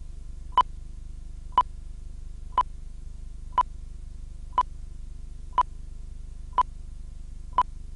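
Eight short, high-pitched electronic beeps, one each second, over a steady low electrical hum.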